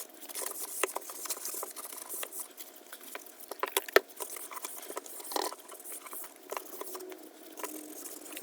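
Scrubbing and wiping the inside of an old Craftsman metal toolbox to clean off grease, with irregular scratchy rubbing and small clicks. One sharp knock comes about four seconds in.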